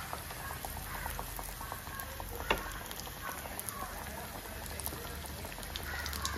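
Crumb-coated banana-flower cutlets frying in hot oil: a steady sizzle full of small crackles, with one sharper pop about two and a half seconds in.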